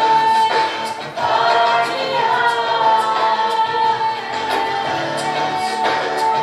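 Music with a singing voice holding long, wavering notes over repeated percussion hits.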